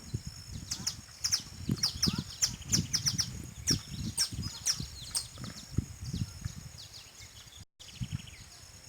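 Songbirds chirping outdoors in a rapid series of short, high, falling notes, thinning out after about five seconds, over a steady high-pitched drone and low rumbling thumps. The sound cuts out for a moment near the end.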